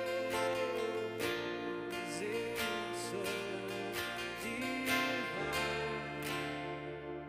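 Music of strummed acoustic guitar chords, repeated strokes over held notes, with the bass moving to a new chord about five seconds in.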